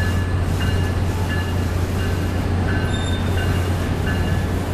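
Freight cars loaded with steel coils rolling slowly past on steel rails, a steady rumble with brief high wheel squeaks repeating every half second or so.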